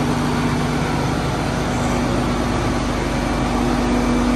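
Diesel engine of a Fendt rubber-tracked tractor running close by with a steady drone. A lower hum underneath fades out about a second and a half in.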